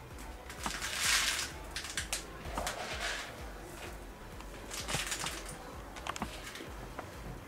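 Hands handling a cut-down plastic water bottle: plastic rustling and crinkling in three short bursts, with scattered small clicks and taps in between.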